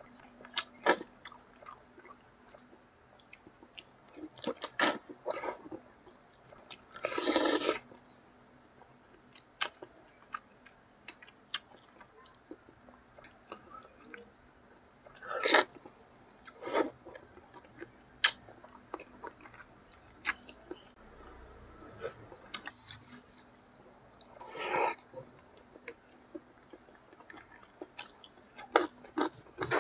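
Close-miked chewing and wet mouth clicks of a person eating catfish in spicy sauce with rice by hand. Three louder, longer wet mouth sounds come about a quarter of the way in, halfway and near the end.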